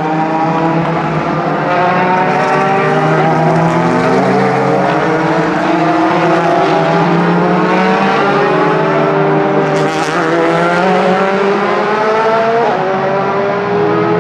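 Several DTM race cars' 4-litre V8 engines running together, their pitch climbing slowly as they accelerate. The pitch drops sharply with an upshift about eight seconds in and again near the end.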